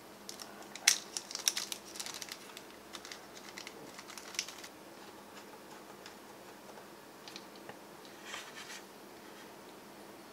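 A small plastic hardware bag crinkling and tiny screws clicking as they are tipped onto a wooden desk, the clicks densest in the first few seconds. Then a few light taps, and a short rustle of handling near the end.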